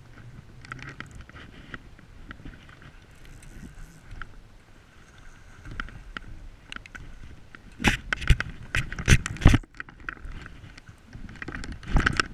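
A hooked salmon being played on a spinning reel: soft reel winding and rain-jacket rustle against the camera, with the fish splashing at the surface. A run of loud knocks and splashes comes about eight to nine and a half seconds in, and another loud splash near the end as the landing net goes into the water.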